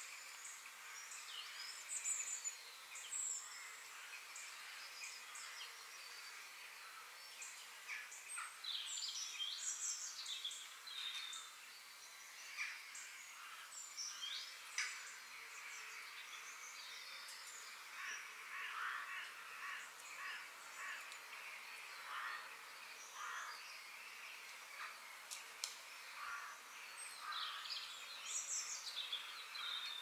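Faint woodland birdsong: several small birds chirping and calling in short, overlapping notes and brief falling calls, over a steady soft hiss of outdoor ambience.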